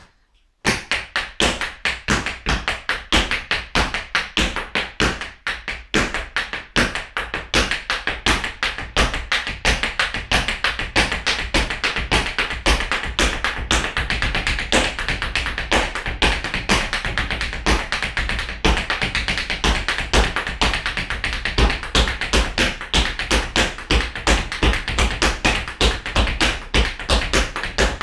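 Tap shoes striking a bare wooden floor in a fast improvised tap dance, a dense run of sharp taps and heavier heel and toe beats. It starts about a second in and keeps going without a break.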